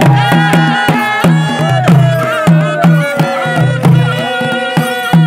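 Nepali dohori folk music: a steady percussion beat, with sticks striking a metal plate, under one long held note that slides slowly down in pitch.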